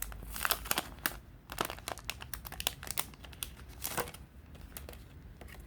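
Plastic packaging crinkling and crackling as a pack of photocards is handled and opened, busiest for the first four seconds and then dying down.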